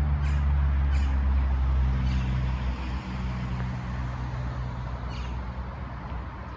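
A car engine running steadily with a low hum that slowly fades, with a few faint short high chirps over it.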